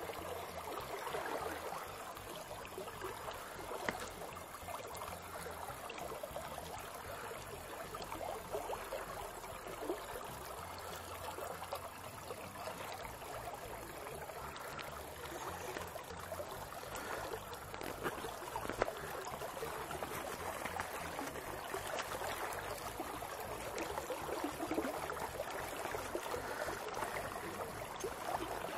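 Small river's current flowing and rippling steadily close by, with a few faint clicks.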